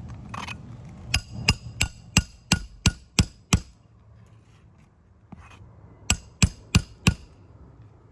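Hammer blows striking a roof snake to drive roofing nails in under a lifted shingle. There are eight quick ringing metallic strikes, about three a second, then a pause, then four more near the end.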